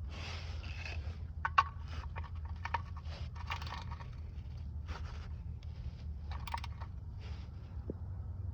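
Socket ratchet clicking and scraping in short, irregular strokes as it tightens the oil drain bolt, over a steady low hum.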